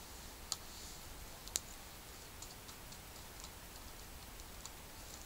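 Small wood campfire crackling: scattered sharp pops and ticks, with two louder pops in the first two seconds and fainter ones after.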